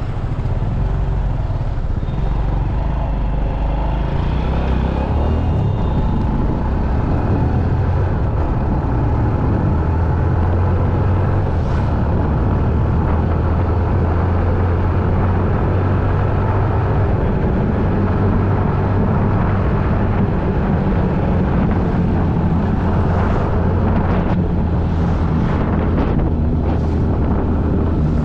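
Steady low rumble of a running vehicle engine with road and wind noise, holding an even level throughout, with a few short rushes of noise near the end.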